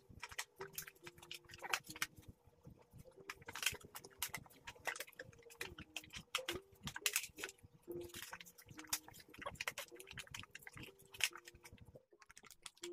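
Plastic film and paper lids of cup noodle bowls being crinkled and peeled off by hand: a quick run of crackles and clicks that stops about a second before the end.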